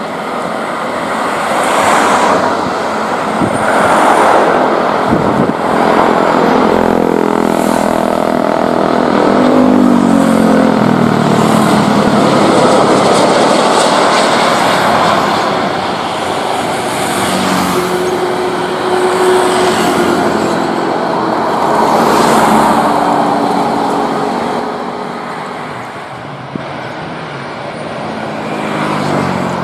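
Jet engines of an Airbus A330-300 (Rolls-Royce Trent 700s) as the airliner passes low overhead on final approach and lands, a loud roar with tones that slide down in pitch as it goes by.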